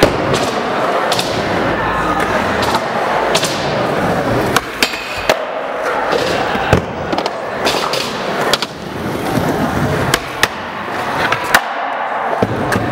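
Skateboards rolling over the smooth floor of an indoor skatepark: a steady rumble of wheels broken by about ten sharp clacks of boards popping and landing.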